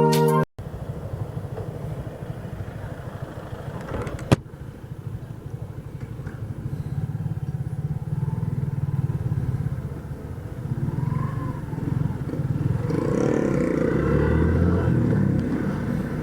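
Motorcycle engine running steadily while riding, heard through a helmet- or bike-mounted action camera modified to cut wind noise, so the engine comes through with little wind hiss. A single sharp click about four seconds in, and the sound swells louder near the end.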